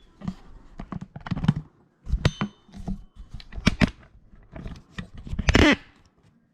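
Small plastic dishwasher parts being handled: irregular clicks, taps and knocks of plastic on plastic and a pickup tool. A louder, longer plastic scrape or creak comes near the end.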